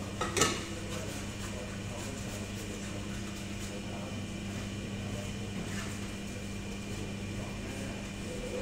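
A metal cake tin knocks sharply once, ringing briefly, as it is lifted off a baked sponge cake about half a second in, with a fainter knock of tin handling later. A steady low machine hum runs underneath.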